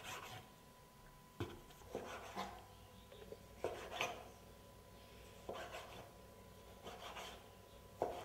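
Kitchen knife dicing a tomato on a plastic cutting board: about ten sharp knife taps on the board, irregularly spaced and often in pairs.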